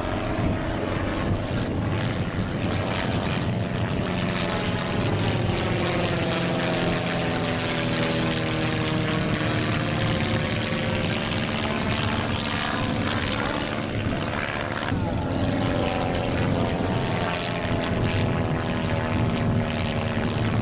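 Propeller engines of a Nord 3202 trainer and a Cri-Cri micro twin flying past together in formation: a steady droning whose pitch slowly sweeps down and back up as the aircraft pass.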